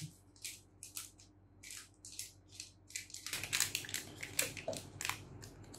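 Cardboard box and paper packaging of a pregnancy test strip being opened by hand: irregular crinkling and rustling.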